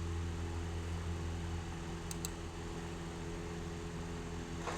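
A steady low hum over faint hiss, with two tiny clicks about two seconds in.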